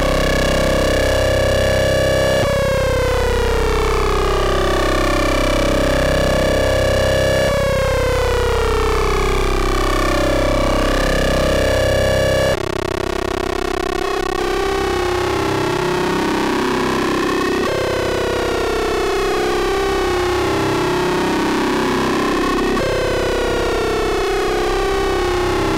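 Eurorack modular synthesizer built on Rossum Trident oscillators in a four-oscillator ring-modulation patch, giving one continuous, rich waveform whose partials glide in a repeating sweep about every five seconds. About halfway through the timbre changes abruptly, and from then on partials slide up and down in opposite directions at the same time, as ring-modulation sum and difference tones do.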